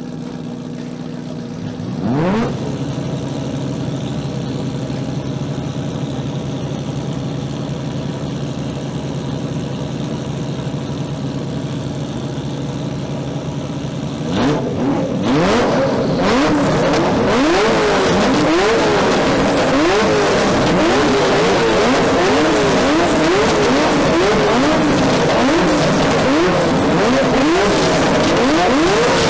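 Ferrari F40 twin-turbo V8 engines idling steadily, with one quick rev about two seconds in. About halfway through the sound gets louder and the engines are revved over and over, the pitch rising and falling about once a second.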